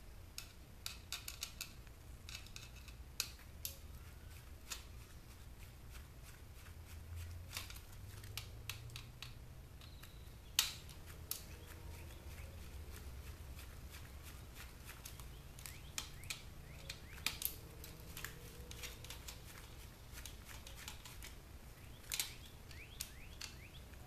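Scattered small clicks and ticks of a screwdriver turning out screws and knocking on the plastic case of a portable DVD player, with gloved hands handling the parts. One sharper click stands out about ten seconds in.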